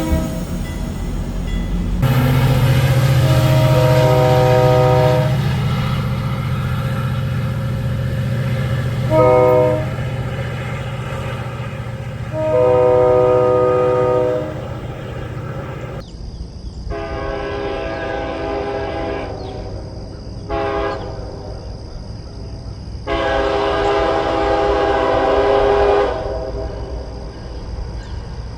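Diesel locomotive multi-chime air horns sounding long and short blasts in the grade-crossing pattern (long, long, short, long), a chord of several notes over the running locomotive engine and passing train. About halfway through it changes to a second train's horn giving the same pattern.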